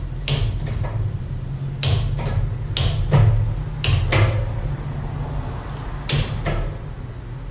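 Sharp clicks and knocks, about ten of them, from hands-on work on an electric bike, over a steady low hum.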